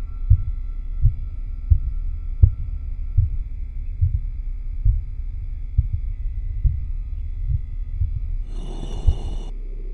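Slow, regular low thuds, about one every 0.8 seconds, over the steady buzzing hum of fluorescent lights. Near the end comes a burst of static-like hiss with high tones, lasting about a second.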